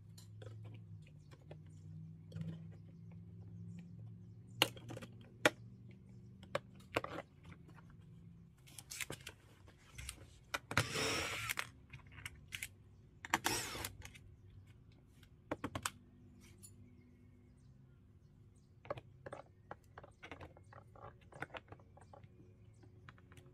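Light plastic clicks and taps of a car door trim panel being worked on by hand, with a cordless DeWalt driver running briefly twice near the middle to remove a panel screw.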